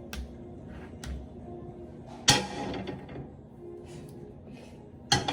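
Knocks and clatter of kitchen items being handled on a counter: light clicks at first, a loud sharp clatter a little past two seconds in, and another knock near the end, over faint background music.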